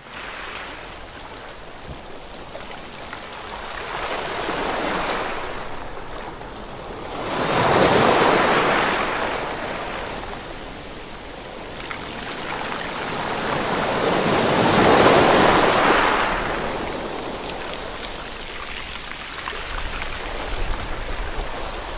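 Ocean waves surging and washing, a steady rush of noise that swells and falls slowly, with the biggest surges about eight and fifteen seconds in.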